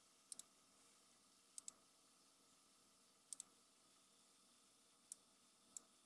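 Faint computer mouse clicks over near silence: three quick double clicks, then two single clicks near the end.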